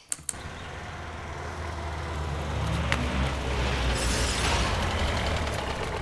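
A motor vehicle's engine running steadily and growing louder over the first few seconds, with a brief hiss about four seconds in.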